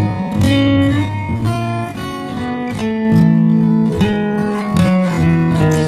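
Background music led by plucked guitar, a melody of held notes changing every half second or so.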